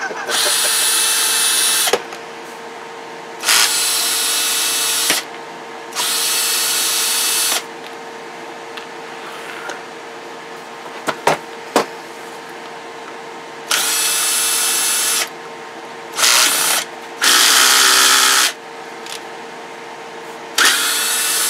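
Cordless drill/driver spinning in about seven short runs of one to two seconds each, with pauses between, as the cover screws are backed out of a CB radio's case.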